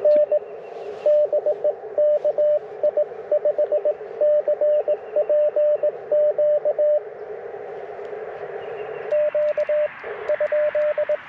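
Morse code (CW) from an Icom IC-705 transceiver: a single steady mid-pitched tone keyed on and off in dits and dahs over steady receiver hiss. It runs for about seven seconds, stops for about two seconds, then a shorter run of characters follows near the end.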